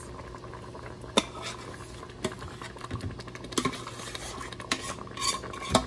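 Stainless steel saucepan clinking against a soup pot while thick cheese sauce is poured from it. A few sharp metal clinks and knocks sound over a low background, the loudest near the end.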